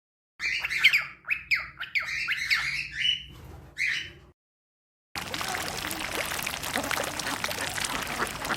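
A bird squawking in a rapid run of short, harsh calls that glide in pitch, lasting about four seconds; after a brief gap, a steady noisy hiss begins.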